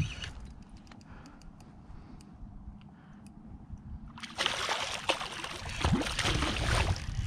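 A hooked jack crevalle thrashing at the surface, fighting the line. A burst of loud splashing starts about four seconds in and lasts a couple of seconds.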